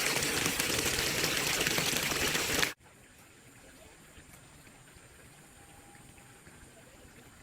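Steady rush of running water for nearly three seconds, cutting off suddenly, then only a faint quiet background.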